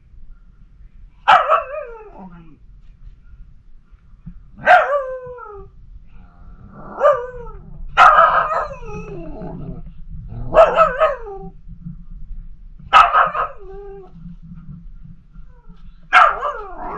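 Pomsky puppy giving short howling barks: about seven calls, one every one to three seconds, each starting sharply and sliding down in pitch.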